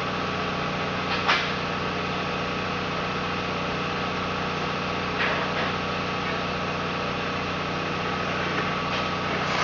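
Steady machine hum from a running motor or fan, holding one even pitch throughout, with a few light clicks.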